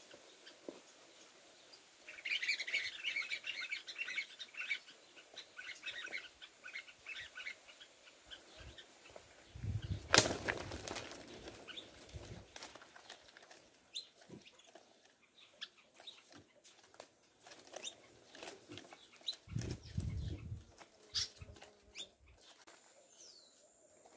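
Small birds chirping in a chattering run for a few seconds, then, about ten seconds in, a sharp knock with a flurry of wing-flapping as a wooden trap cage snaps shut on a black bird. Another short burst of flapping comes later, the caught bird fluttering against the cage, among scattered small ticks and rustles.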